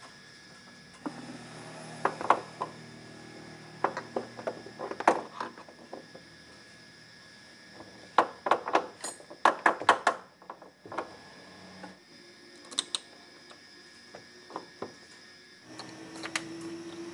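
Irregular clusters of sharp metallic clicks and knocks as a Maruti Omni steering gearbox is handled and fitted up against the van's underbody.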